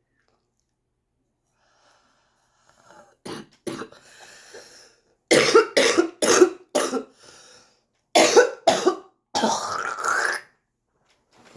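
A smoker coughing in fits with a congested airway: two short coughs about three seconds in, then a run of four, two more, and a longer drawn-out cough near the end. The uploader guesses this is what chronic bronchitis sounds like.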